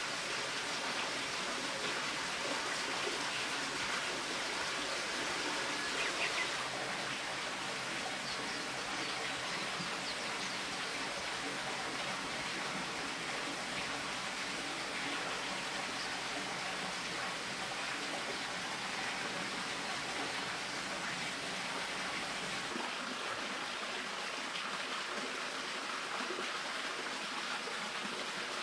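Spring water running and splashing steadily in a continuous, even rush.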